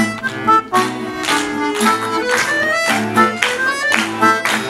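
Instrumental break of a song: an accordion plays the melody over an acoustic guitar strummed in a steady rhythm.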